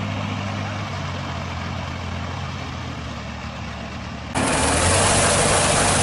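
Shibaura SD 2200 tractor engine running steadily under load as it drives through a flooded paddy. About four seconds in, the sound suddenly turns louder and closer, and a rushing hiss of churned mud and water spraying from the trenching attachment joins the engine.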